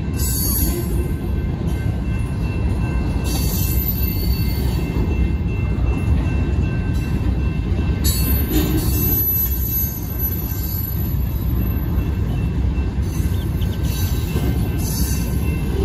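Covered hopper cars of a sand train rolling past: a steady heavy rumble of steel wheels on rail, with high-pitched wheel squeal coming and going several times, strongest about eight seconds in.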